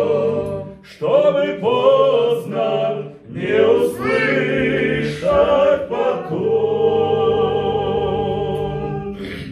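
A male vocal ensemble singing the end of a Russian-language Christian song in several sung phrases, closing on a long held chord that fades out near the end.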